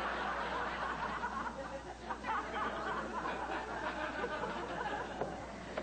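Studio audience laughing, a dense wash of many voices that slowly dies away near the end.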